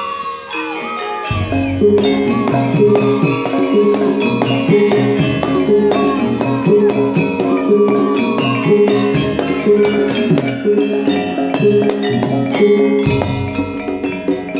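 Live jaranan gamelan music: metallophones play a quick repeating figure over drums, with a wavering melody line above. The low end comes in about a second and a half in.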